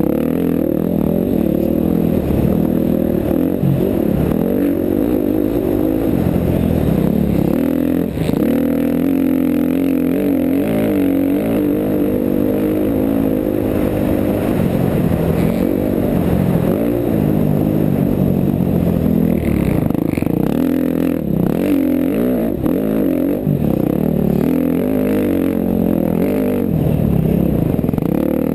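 KTM 350 XC-F dirt bike's four-stroke single-cylinder engine under hard riding, its pitch rising and falling over and over as the rider works the throttle and shifts, with a brief dip about eight seconds in.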